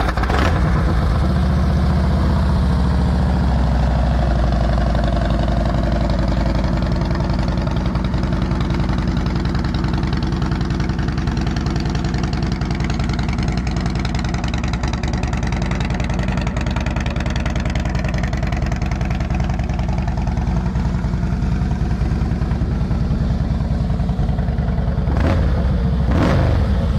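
Harley-Davidson 103-cubic-inch V-twin idling steadily through Vance & Hines Long Shots exhaust, just after starting. The revs rise briefly and drop back near the end.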